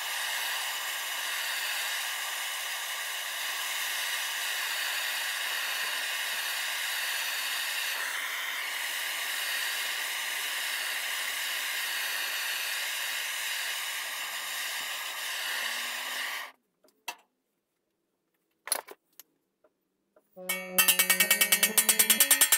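Small handheld gas blowtorch burning with a steady hiss as it heats a sheet-metal floor panel before hammer-forming. The hiss cuts off suddenly about two-thirds of the way in, leaving a few faint clicks. Near the end, loud background music with a beat comes in.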